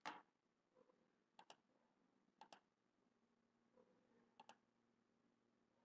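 Faint clicks of a computer mouse button, three quick press-and-release pairs, each placing a point of a sketch line being drawn. A soft short burst of noise comes right at the start.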